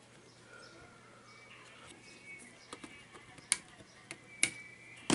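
Side cutters snipping soldered component leads on the underside of a circuit board: two sharp clicks about a second apart, in the second half, over faint room tone.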